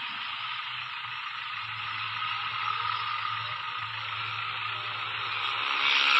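Steady rushing hiss with a faint low hum underneath, swelling louder near the end.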